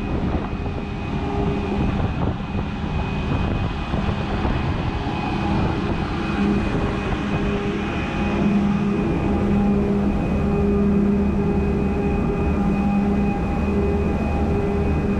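Steady drone of a passenger ferry's engine: a low hum with a few held tones over rumble and hiss, the hum growing a little stronger about halfway through.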